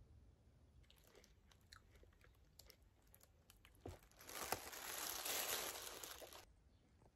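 Faint scattered clicks and rustles, then a knock a little before four seconds in, followed by about two and a half seconds of dense rustling from a plastic cereal bag liner and dry chocolate cereal pieces tipped into a ceramic bowl. The rustling stops suddenly.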